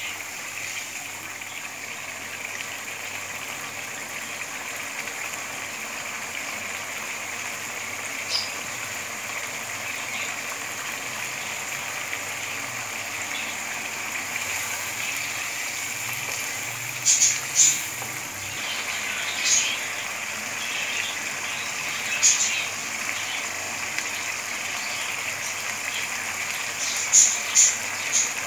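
Eggs and potatoes sizzling steadily as they fry in masala in a non-stick wok, with a spatula scraping and knocking against the pan in a few short clicks, mostly in the second half.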